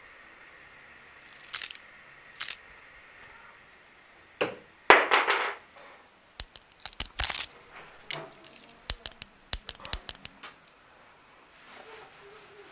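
Irregular sharp clicks and cracks, with a loud rushing noise about five seconds in and a dense run of clicks after it.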